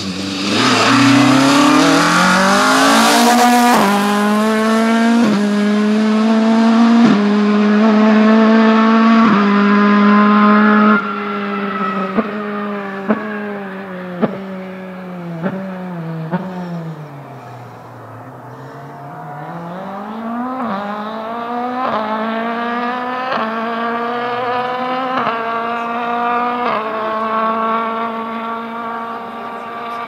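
Ford Escort Mk2 rally car's Millington four-cylinder engine accelerating hard through several upshifts, the revs climbing and dropping back with each gear. The driver then lifts off, and the exhaust cracks and pops on the overrun as the revs fall. The engine then accelerates through the gears again.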